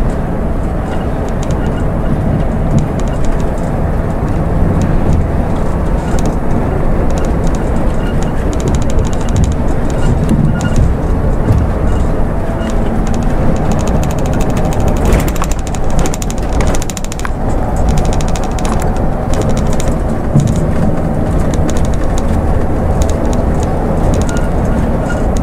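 Scania coach's engine running steadily under way, with road and tyre noise, heard from inside the driver's cab.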